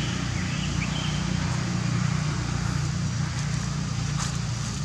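A steady low hum runs under outdoor ambience. About four seconds in come a few short crackles of dry leaves as a young macaque walks over the leaf litter.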